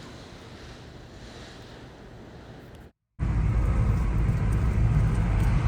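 Faint steady hiss. About three seconds in, after a brief dropout, a car driving starts: a loud, steady low rumble of road and wind noise.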